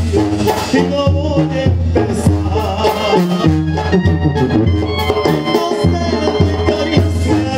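Mexican banda regional playing dance music live, with a low bass line stepping from note to note and a steady drum beat under the horns.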